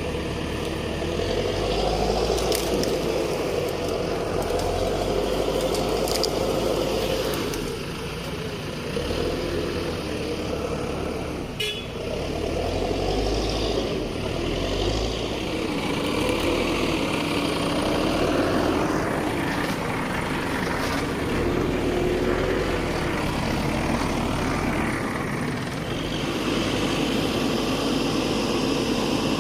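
Diesel engine of an Escorts Digmax II backhoe loader running and revving up and down as the machine works, with a wavering whine over the engine note.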